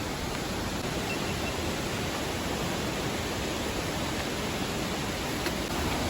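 Steady, even rush of a waterfall, with no breaks or changes.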